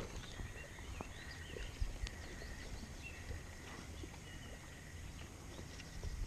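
Songbirds chirping and calling, with a thin steady trill through the first few seconds, over a low rumble.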